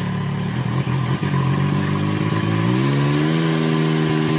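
Turbocharged Rotax three-cylinder engine of a Can-Am Maverick X3 with a KMS big turbo, freshly started and idling to cool down. The engine runs steadily, then its speed steps up a little about three seconds in and holds there.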